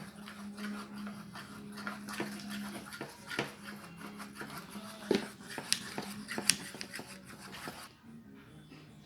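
Slime of glue and activator being stirred with a stick in a small plastic dish: a busy, irregular run of sticky clicks and squelches, with the sharpest clicks a little past the middle, stopping shortly before the end.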